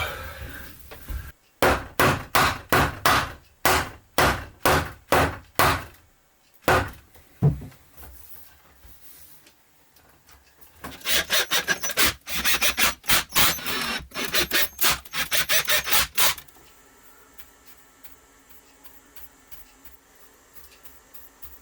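A hand tool worked back and forth on wood in regular rasping strokes: a run of about two strokes a second, then after a pause a faster run of about three a second. It stops about three-quarters of the way through.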